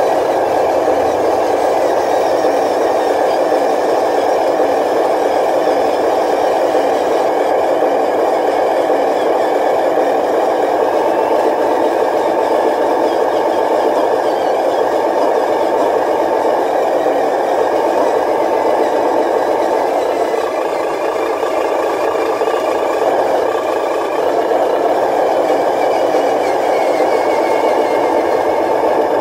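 Radio-controlled model dump truck running: a steady, engine-like mechanical sound that holds level, easing slightly for a few seconds about two-thirds of the way through.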